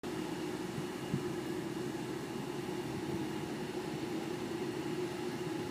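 Distant jet airliners' engines running, a steady drone with a constant humming tone. One brief soft knock about a second in.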